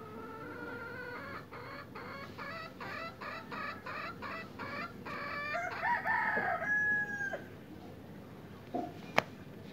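Rooster calling: a run of quick, evenly spaced clucks, about three a second, building into a louder, longer call with a held note that stops about seven seconds in. A single sharp click follows near the end.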